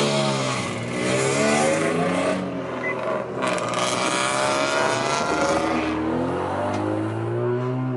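Car engine accelerating hard through the gears, heard from inside a following car. The pitch climbs, then drops at each shift, several times over.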